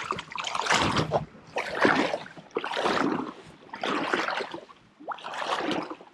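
Paddle strokes pulling a small boat through the water: five even swishes, about one a second.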